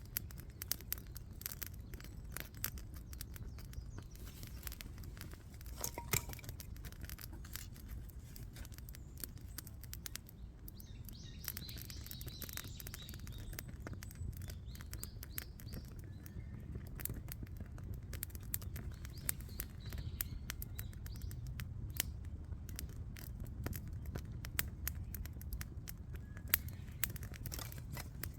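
Many small, irregular clicks and taps of close handling over a steady low rumble, with birds chirping twice in the background, about a third and two thirds of the way through.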